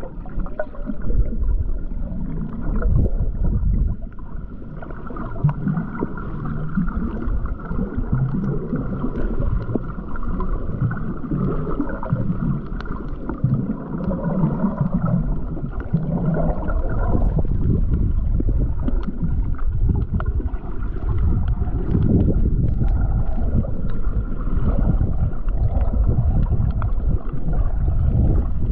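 Muffled sloshing and gurgling of water, dull and irregular, with almost nothing in the high end.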